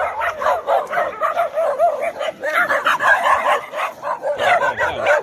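A pack of dogs barking and yipping at once, many short barks overlapping one another in a steady run.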